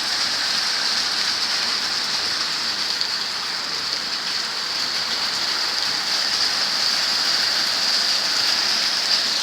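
Rain pouring down steadily, an even hiss that holds at the same level throughout.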